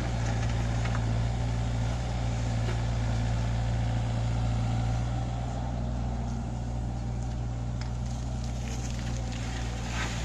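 Kubota U48-4 mini excavator's diesel engine running steadily under load as it works its arm and bucket backfilling a grave, easing slightly about halfway through. A brief clatter near the end.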